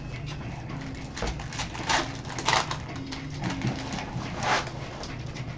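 Foil trading-card pack crinkling and tearing open in gloved hands, with a few short rustles about two seconds in and again near the end.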